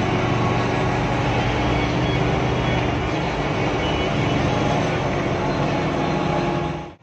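Steady cabin noise of a Hino AK8 bus under way: its diesel engine running with a steady hum, mixed with road and body noise. The sound drops out abruptly at the very end.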